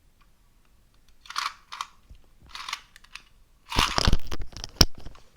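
Plastic packaging crinkling and crunching as toy parts are unpacked, in several short bursts, loudest about four seconds in, with a sharp click just before the end.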